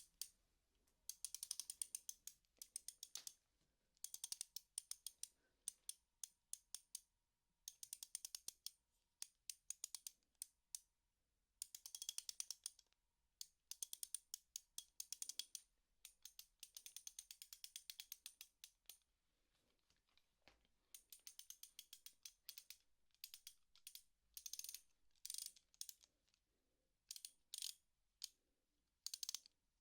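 Socket wrench ratcheting quietly in short runs of rapid clicks, each run about a second long, repeated with brief pauses between.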